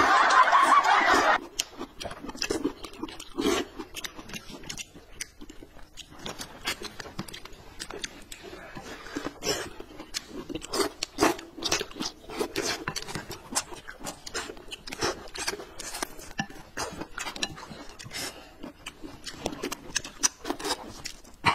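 Close-miked eating: a loud slurp of noodles in about the first second, then irregular chewing, lip-smacking and small slurps from two people eating.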